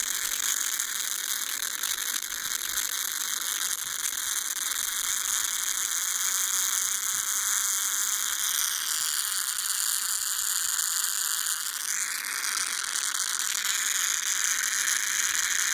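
Campark action camera playing back a recording whose audio is a harsh, steady mechanical-sounding buzzing noise instead of normal sound, with high tones that slide in pitch about 8 and 12 seconds in. This is the camera's audio malfunction.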